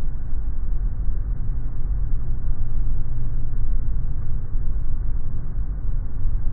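Steady low rumble of an airliner taxiing, heard close to the nose landing gear: the tyres rolling on concrete pavement, mixed with engine and airflow noise.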